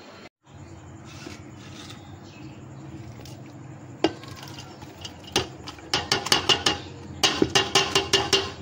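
Chopped vegetables tipped into an aluminium cooking pot, with a sharp metallic knock about halfway through and then two quick runs of ringing taps on the pot near the end, knocking the last of the onions, tomatoes and chillies in. A steady low hum runs underneath.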